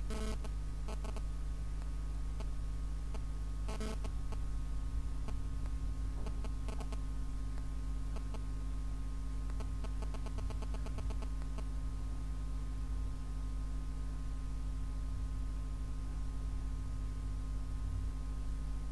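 Steady low hum with a few thin steady tones, broken by scattered light clicks and a short stretch of rapid clicking about halfway through, from playing cards being handled.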